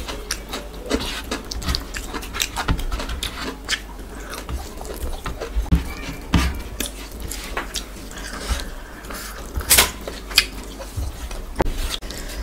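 Close-miked eating sounds: wet chewing and mouth smacks over soft khichuri and chicken, with fingers squishing the food in a steel tray. Many sharp clicks throughout, one noticeably louder late on.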